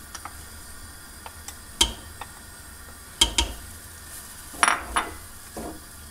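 A stirring spatula and a small cup knocking and scraping against a cooking pot as tomato paste is stirred into the soup: a few sharp knocks, two close together near the end.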